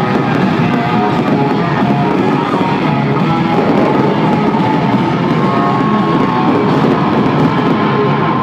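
Loud country-rock music with electric guitars, played over a stadium sound system.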